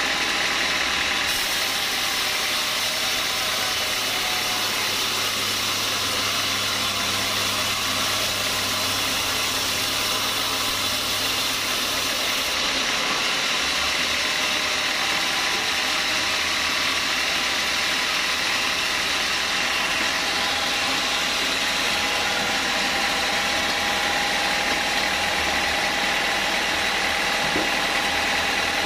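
Vertical band sawmill running steadily while its blade saws a small-leaf acacia log on the carriage: an even machine noise with a faint high tone running through it.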